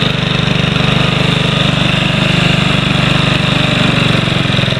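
Honda HRM215 lawn mower's single-cylinder four-stroke engine running at a steady, even speed. The engine, freed after being seized, runs smoothly.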